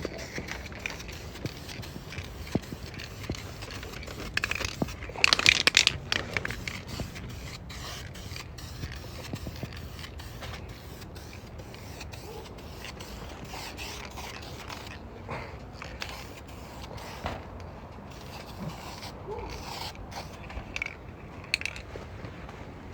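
Aerosol can of black paint being handled and sprayed: scattered clicks and rattles, with one hiss of spray about five seconds in lasting about a second. It is a light mist of guide coat over fresh primer, used to show up low spots before block sanding.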